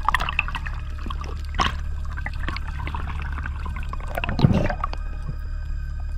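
Underwater camera sound: a steady low rumble of water against the housing, with scattered clicks and water gurgling, and a louder burst about four and a half seconds in.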